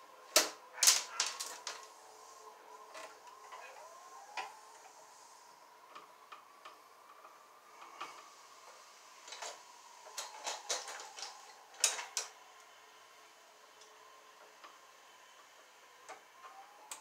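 Sharp clicks and snips of hand wire strippers and pliers cutting and stripping electrical cable at a junction box. They come in two quick clusters, near the start and about two-thirds of the way through, with scattered single clicks between, over a faint steady hum.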